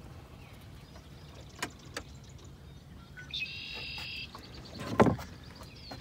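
Small fishing boat while a catfish is being reeled in: a few light clicks, a brief high buzzing tone about three and a half seconds in, and one loud thump about five seconds in.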